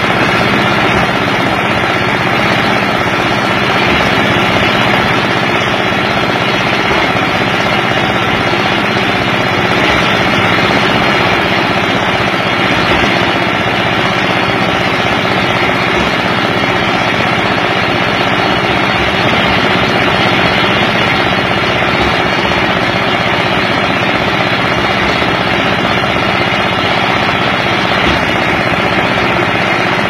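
A cement mixer's small stationary engine running steadily and loudly.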